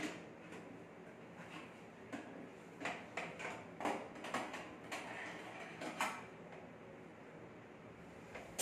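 Metal rack and baking tray of a Hanabishi air fryer oven clinking and scraping as they are handled and slid about inside the open oven: a string of separate knocks and clatters, one every half second or so.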